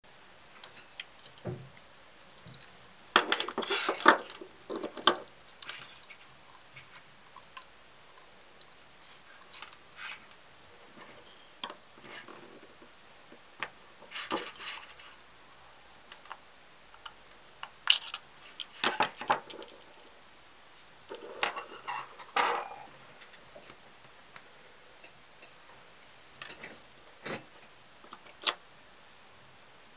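Metal tools clicking and scraping against a quartz pocket watch's metal case as the back cover is pried off with a flat blade and the movement is worked with tweezers. The clinks come in scattered clusters with quiet between.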